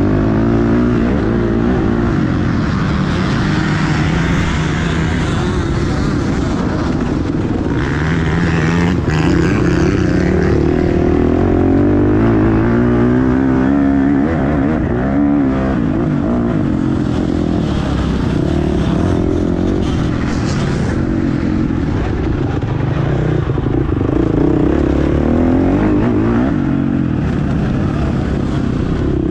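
Motocross bike engine heard from the rider's helmet camera, revving up and dropping back again and again as the bike accelerates, shifts and slows around the track.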